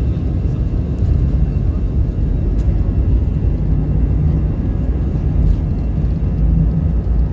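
Airbus A319 cabin during the takeoff roll: a loud, steady, deep roar of the engines at takeoff thrust.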